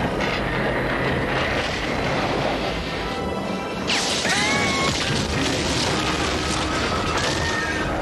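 Film action soundtrack: music under a dense mix, then about four seconds in a sudden loud crash as a house wall bursts apart, with crashing debris going on after it and a few short high sliding tones.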